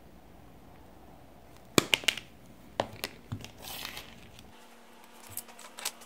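Diagonal cutters snipping insulated wire leads: a few sharp snips close together about two seconds in, then lighter clicks and a brief rustle as the cut wire is handled, and two more clicks near the end.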